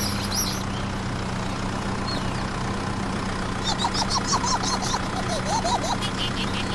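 Engine idling with a steady low hum, and a run of quick high chirps over it about halfway through.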